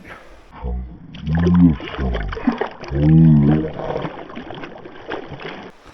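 Slowed-down audio from a slow-motion replay of a trout strike: a man's voice dragged down into two deep, drawn-out groans, over a dulled wash of stream noise.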